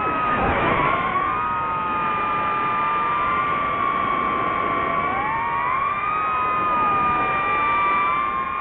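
DJI FPV drone's propeller motors whining, several tones gliding down and back up together as the throttle changes. A brief rush of noise with a swooping dip in pitch comes about half a second in.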